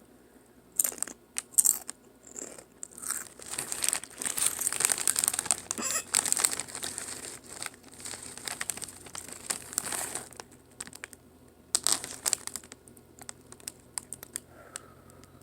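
A Doritos chip bag crinkling as it is handled: a few sharp crackles, then several seconds of dense rustling, then a few more crackles.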